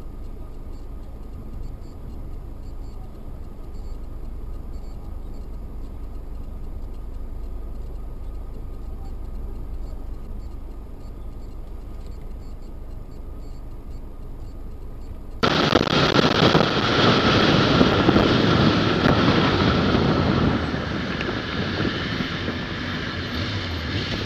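Vehicle interior driving noise picked up by a dashcam: a steady low rumble of engine and road. About two-thirds of the way through it cuts abruptly to a louder, rougher rush of wind and road noise.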